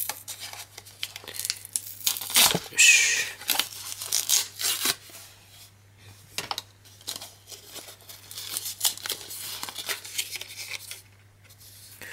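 Plastic-and-card retail packaging being torn and peeled open by hand, a run of crinkling, crackling rips with the loudest, longest tear about three seconds in.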